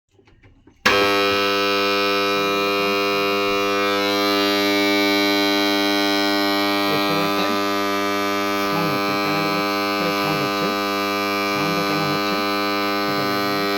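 Submersible pump control panel giving off a loud, steady electrical hum. It starts suddenly about a second in and stops suddenly at the end. This is the abnormal panel-box noise the video sets out to diagnose.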